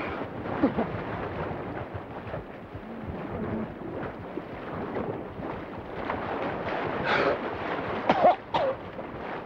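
Rushing river rapids: a steady, heavy noise of churning water. A few short pitched sounds rise above it near the end, the loudest about eight seconds in.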